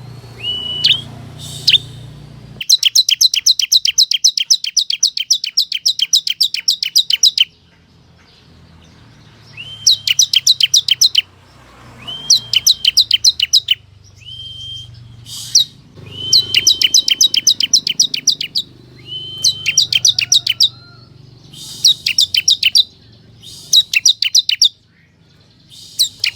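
Bar-winged prinia (ciblek) singing its rapid trill: bursts of sharp, evenly spaced notes at about nine a second, some opening with a short steady whistle. One long trill of several seconds, then shorter bursts every couple of seconds.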